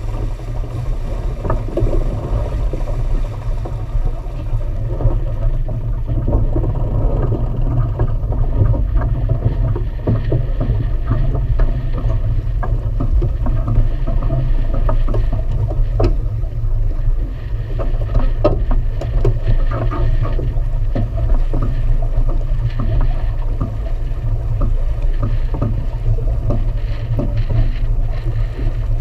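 Wind buffeting the microphone over water rushing along the hull of a sailboat under sail, with scattered clicks and knocks from the deck gear.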